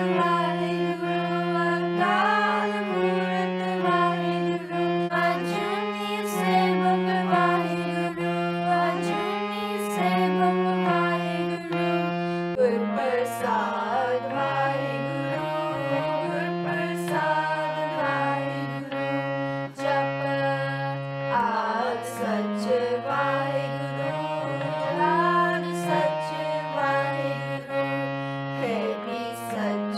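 Sikh kirtan: a harmonium plays sustained reed chords and melody while voices sing a devotional hymn along with it.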